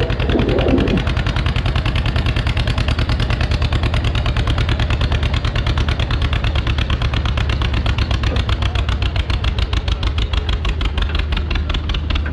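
Pulling-tractor engine idling steadily with an even, rapid firing beat, hooked to the sled before the pull.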